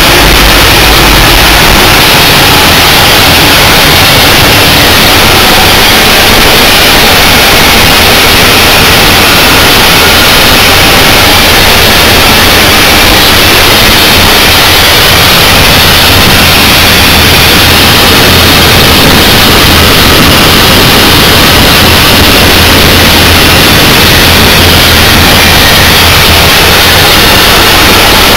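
Loud, steady noise in the cab of a Mount Washington Cog Railway steam locomotive under way: running gear, steam and fire blending into one even sound with no separate beats.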